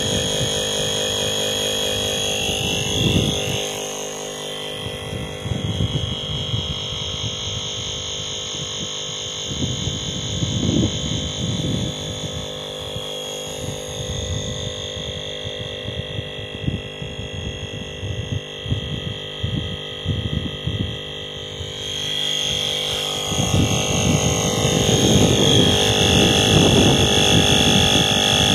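Airbank Puffer Pro electric pump running steadily with a whine of many steady tones, inflating a kite while the pressure builds to about 6 psi. Uneven low rumbling runs underneath.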